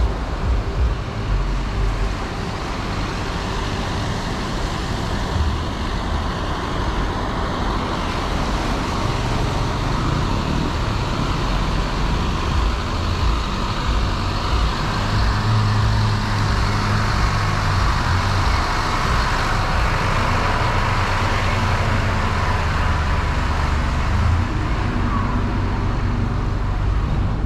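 Steady road traffic from a busy street, with heavy vehicles such as buses or trucks passing; the low engine rumble swells around the middle.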